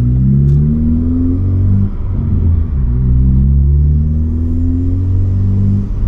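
Ford Focus ST's turbocharged four-cylinder, fitted with a big rotated SideWinder turbo, accelerating hard through the gears and loud. The engine note climbs, breaks for a gear change about two seconds in, climbs again, and breaks for another shift near the end.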